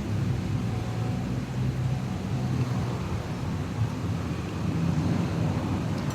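Steady low background rumble with a hum.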